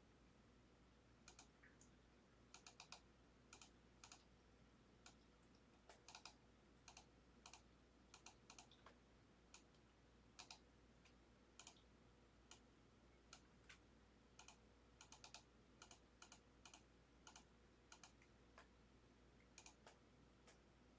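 Faint typing on a computer keyboard: sharp keystroke clicks coming irregularly, singly and in quick little clusters.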